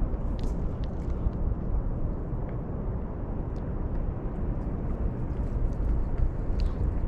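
Wind buffeting the microphone: a steady, uneven low rumble, with a few faint clicks.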